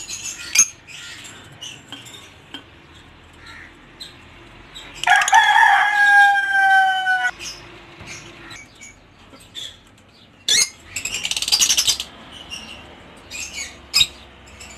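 A rooster crows once, a single call of about two seconds starting about five seconds in. Short sharp clicks and chirps come and go, with a rapid high fluttering burst of about a second and a half near the middle.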